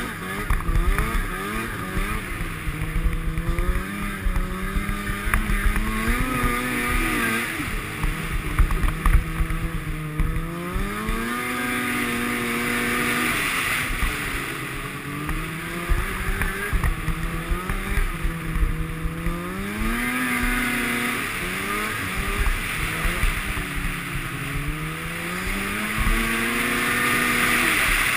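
Arctic Cat Sno Pro 500 snowmobile's two-stroke engine under way, its pitch rising and falling every few seconds as the throttle is opened and eased off.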